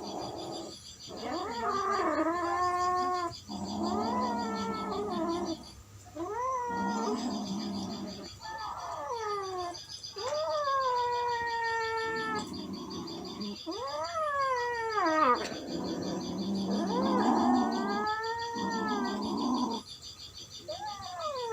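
Cats caterwauling in a fight: a run of about eight long, drawn-out yowls that rise and fall in pitch, with rough growling between them.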